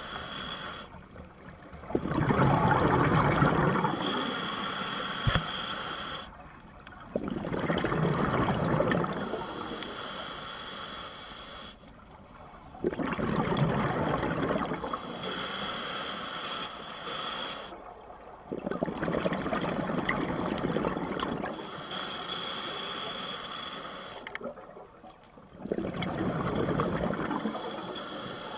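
Scuba diver breathing through a regulator underwater: five rushes of exhaled bubbles, about every five to six seconds. Each is loud for about two seconds and then trails off, with a short quiet gap before the next.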